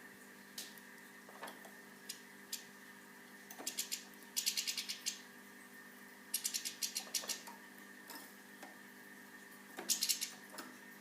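Goldfinches at a seed feeder: scattered single taps and three quick runs of sharp clicks, from beaks and feet on the feeder, over a faint steady hum.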